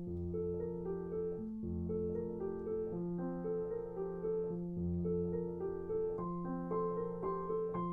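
Background music: a gentle piano tune with a low held bass note and a repeating pattern of higher notes.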